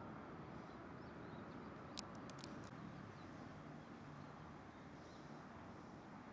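Wind buffeting the microphone as a steady low rushing noise. About two seconds in, a quick run of four or five sharp clicks cuts through it.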